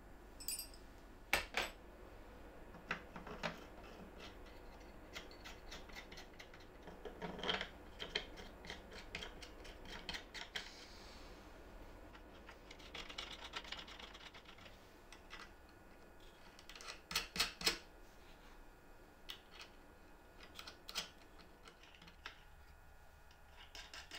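Light clicks and small metallic clinks of steel threaded rods and nuts being handled and fitted into a plywood jig by hand, scattered irregularly with a few louder quick clusters.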